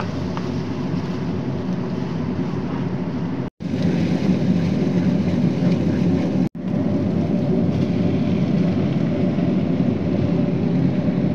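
Tomato and garlic sauce sizzling in a frying pan on a gas stove as it is stirred, over a steady low hum. The sound cuts out abruptly twice, for a split second each time.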